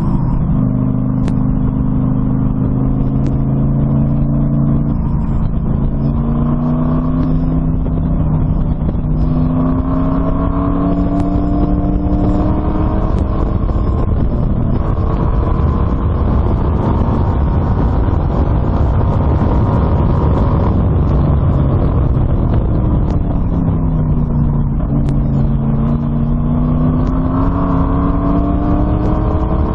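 LS1 V8 in an open Exocet track car running hard on track. Its note climbs over several seconds, falls about three-quarters of the way through, then climbs again near the end, all over heavy wind and road noise.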